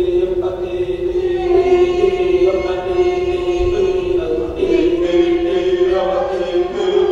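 Recorded voices chanting together on one steady held note, with other pitches moving above it. This is a recreation of prehistoric singing in a reverberant cave, played back over a hall's speakers.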